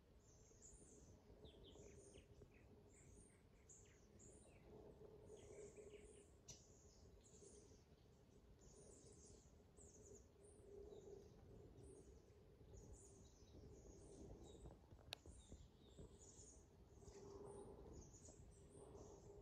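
Faint songbirds chirping: many short, high calls repeat throughout over a quiet background. A faint low hum swells and fades every few seconds, and a single sharp click comes about 15 seconds in.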